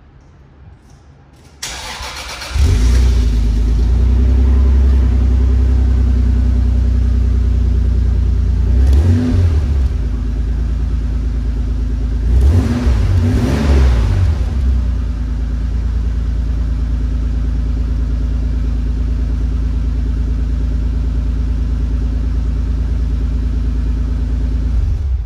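Toyota Supra RZ's twin-turbo 2JZ-GTE inline-six cold starting: a brief crank, and it fires right up into a loud fast idle. It is revved once about nine seconds in and twice more around thirteen seconds, settles into a steady idle, and cuts off at the very end.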